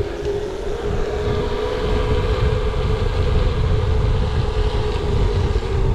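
Wind rushing over a bike-mounted camera's microphone while riding a bicycle along pavement, a steady low rumble with tyre noise and a steady hum throughout.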